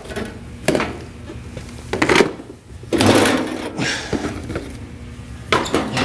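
Handling noise: scattered knocks and clunks, with a longer rustling, scraping stretch about three seconds in.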